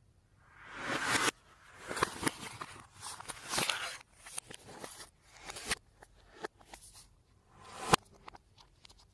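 Slime being worked by hand: irregular wet squishing bursts, each ending in sticky pops and crackles, about seven of them, with the sharpest pop near the end.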